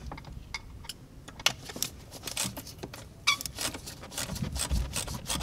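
A hand tool loosening the 7 mm clamp on a boost hose in an engine bay: a run of light metallic clicks and rattles, sparse at first and coming faster in the second half.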